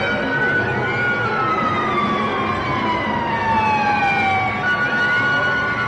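Several overlapping wailing, siren-like tones sliding slowly down in pitch, the loudest one falling steadily over about four seconds, with a steady higher tone entering near the end.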